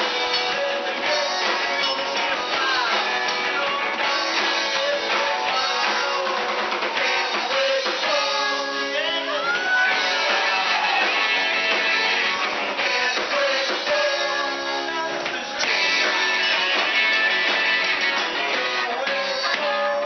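Live rock-and-roll band playing: electric guitars, drum kit and upright bass, with a singer on the microphone.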